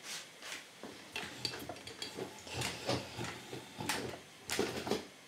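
Irregular light clicks, clinks and knocks of metal parts and tools being handled on a workbench, a few each second with brief rustles between.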